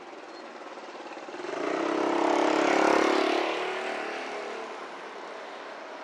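A motor vehicle passing close by: its engine grows louder to a peak about three seconds in, then fades away.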